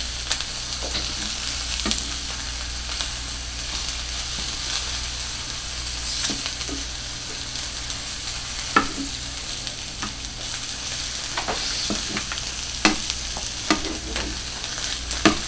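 Cubed chicken sizzling in olive oil in a skillet: a steady frying hiss, with a utensil clicking and scraping against the pan now and then as the pieces are stirred.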